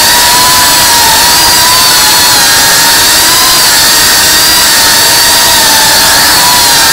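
Tiny whoop FPV drone's motors and propellers whining: a loud, steady high-pitched buzz whose pitch wavers slightly.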